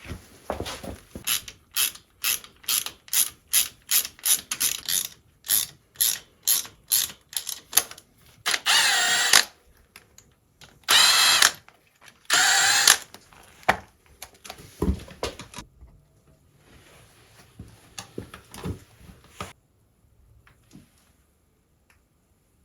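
Hand ratchet wrench clicking in quick repeated strokes as bolts are turned, then a power tool runs in three short bursts, followed by a few fainter ratchet clicks.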